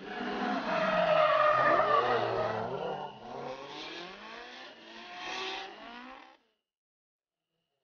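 Two drift cars sliding in tandem: engines revving hard with rising and falling pitch, over the squeal of spinning rear tyres. It is loudest in the first couple of seconds and cuts off abruptly about six seconds in.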